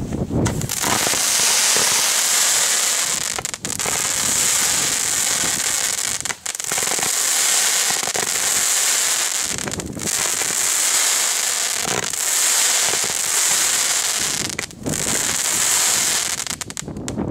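Consumer firework spraying with a continuous crackling hiss that drops out briefly about five times and stops near the end.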